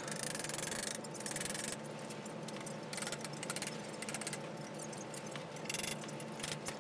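Light metallic clinks and rattles as steel box-section cross members are set into a chassis frame and handled with a hammer, over a faint steady hum.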